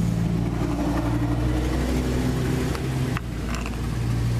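An engine running steadily at a low, even pitch, with a couple of sharp clicks about three seconds in.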